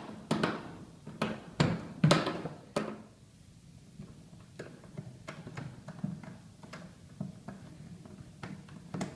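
Hand tools working on an upturned stainless steel step trash can: a few sharp knocks and clicks in the first three seconds, then faint, irregular ticking as a screwdriver unscrews the screw holding the plastic pedal fastener.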